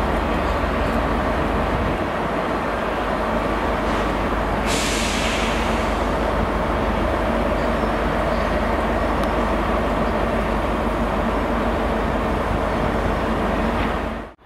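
Class 67 diesel locomotive's two-stroke V12 engine running steadily as it moves slowly away over the station pointwork. A sudden hiss of air starts about five seconds in and lasts about a second.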